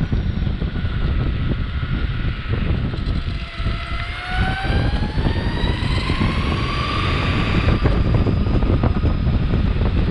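Electric longboard motor whine rising in pitch as the board speeds up from about three and a half seconds in, then holding steady, over heavy wind rumble on the microphone and wheel noise from the pavement.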